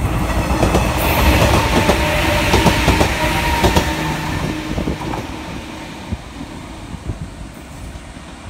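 JR Kyushu 103 series electric train passing close by, its wheels clattering over the rail joints. It is loudest in the first few seconds, then fades as the train moves away.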